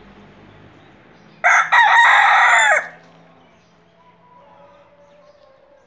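Rooster crowing once, about a second and a half in: a short opening note, a brief break, then a long call that drops in pitch as it ends, about a second and a half in all.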